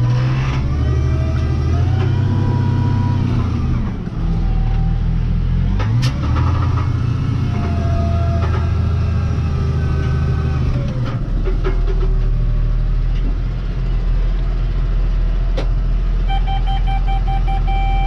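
Tractor engine running under load, a steady low drone whose pitch shifts a few times. About two seconds before the end, a steady electronic warning beep starts.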